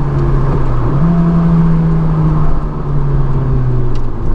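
Honda S2000's 2.2-litre four-cylinder engine breathing through an aFe Takeda intake, heard inside the cabin while driving. The engine note steps up about a second in, holds, then drops back and slowly falls away near the end.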